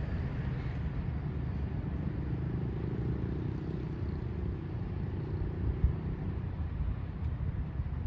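Low, steady rumble of vehicles, with a single short knock about six seconds in.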